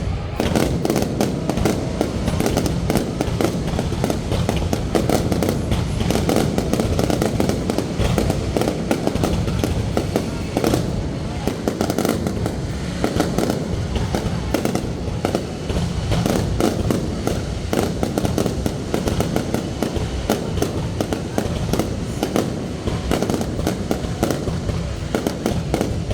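New Year fireworks display going off nonstop: a dense, rapid barrage of bangs and crackling pops, several a second, with no pause.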